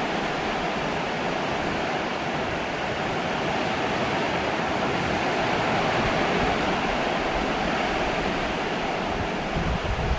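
Steady hiss of heavy hurricane rain pouring down on the yard and the metal porch awning.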